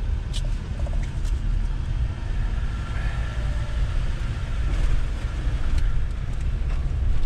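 Pickup truck running, heard from inside the cab: a steady low rumble with a light hiss above it.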